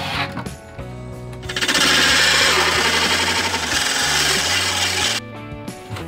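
Power drill running in one continuous burst of about four seconds with a fast chatter, starting about a second and a half in, over background music.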